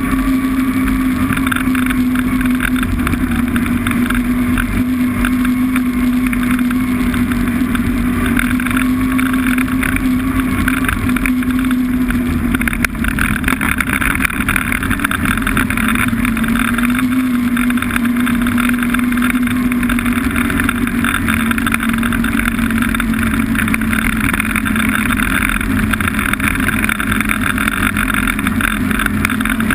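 Snowmobile engine running at a steady cruising speed, its pitch holding nearly level with a slight dip about twelve seconds in.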